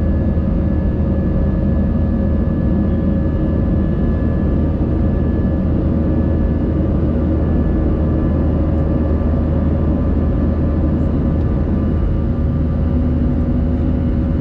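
Jet airliner cabin noise heard from a window seat while climbing after takeoff: a steady deep rumble of the under-wing turbofan engines and airflow, with a few faint steady whining tones over it.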